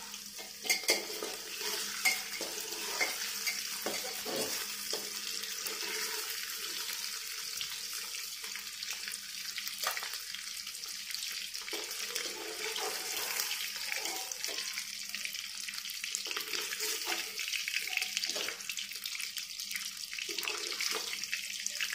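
Paneer cubes and cumin seeds sizzling in hot oil in a pressure cooker, a steady hiss. A metal spatula clinks and scrapes against the cooker now and then as the cubes are lifted out, most sharply near the start and about halfway through.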